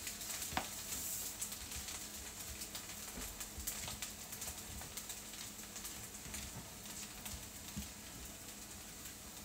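Food frying in a pan on the stove: a faint steady sizzle with scattered small crackles.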